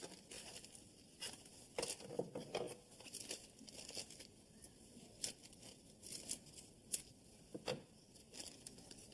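Paper being handled: faint irregular crinkling and rustling, with scattered small taps and crackles as a packet is fiddled with and opened.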